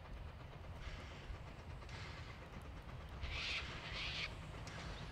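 Distant Puffing Billy narrow-gauge steam locomotive working towards the listener, its exhaust chuffing about once a second, with two stronger chuffs about three and four seconds in, over a low rumble.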